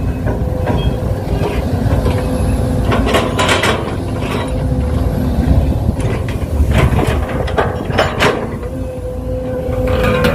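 Excavator working at soil loading: a steady machine whine with a low rumble underneath, broken about three times by short bursts of scraping and clattering as the bucket digs and dumps soil.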